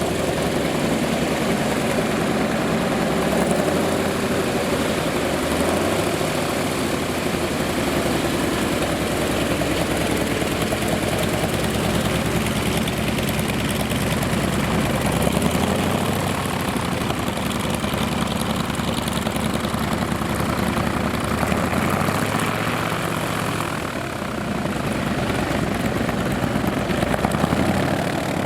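Vintage piston aircraft engine running steadily with propeller noise, its pitch wavering slightly up and down.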